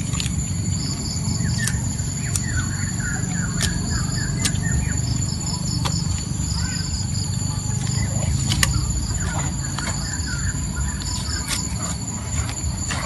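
Outdoor ambience of steady high-pitched insect drones with short bird chirps over a constant low rumble, with a few sharp clicks now and then.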